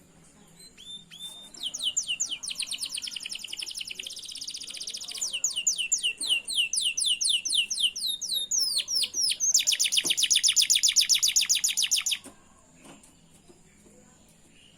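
Domestic canary singing a long song of rapid trills: phrase after phrase of fast repeated high notes, each phrase at a different pitch and pace, ending with a very fast buzzing trill that stops abruptly about twelve seconds in.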